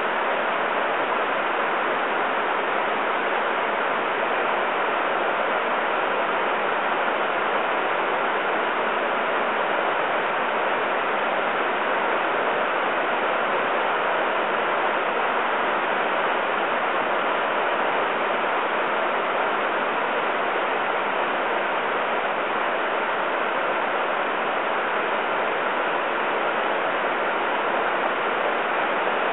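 A steady, unchanging rushing hiss with no rhythm or tones.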